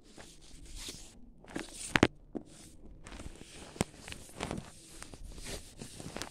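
Rustling of wrapping paper and a satin ribbon as a gift box is unwrapped by hand, with a couple of sharp knocks from handling the box about two and four seconds in.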